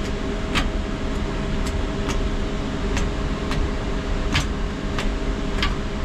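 Steady hum and whir of the refrigerator's running evaporator fans, with about eight irregular light clicks as a gloved hand works the stuck evaporator fan blade. The blade does not start: the fan motor has power but is stuck, a bad motor.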